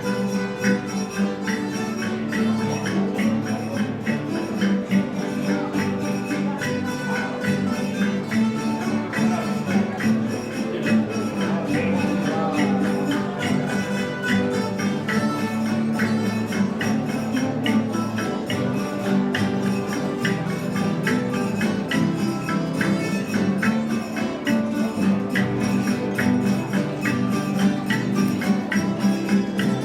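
Traditional Castilian ronda music from a folk group, with a tambourine beating a steady rhythm over sustained instrumental tones.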